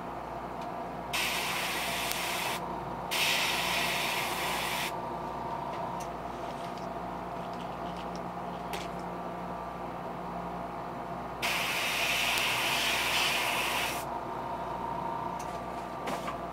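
Airbrush spraying paint onto a fishing lure: three short bursts of hissing air, the last and longest starting near the middle. A steady hum runs underneath.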